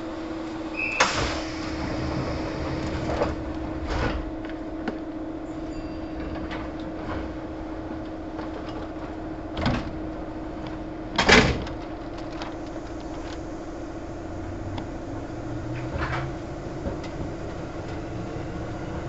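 Kintetsu 1810 series electric train standing at a station, heard from inside the car: a steady hum from the car's equipment. Several sharp knocks from the sliding passenger doors break it, the loudest about eleven seconds in.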